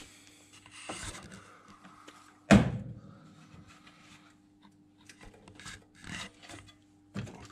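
Hands and tools working at the front of a car engine, around the alternator and belt pulleys: scattered rubbing and clicking of parts, with one loud knock about two and a half seconds in.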